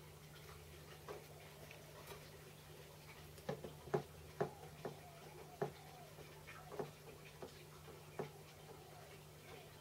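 Irregular light metallic clicks and taps from hands and tools working the mounting screws at the base of a mini lathe's headstock, about a dozen, loudest about four seconds in, over a faint steady hum.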